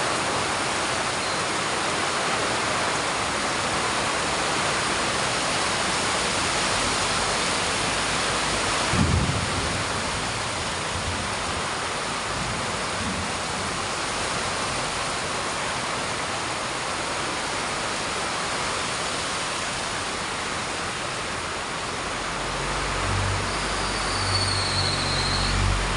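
Heavy rain pouring down in a steady hiss. There is a brief low thud about nine seconds in, and a low rumble builds near the end.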